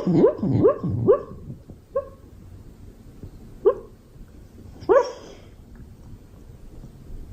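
Beagle barking: a quick run of four or five short barks, then three single barks spaced a second or two apart.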